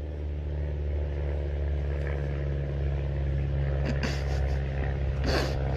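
A car engine running with a steady low hum, with two brief scuffs or rustles about four and five seconds in.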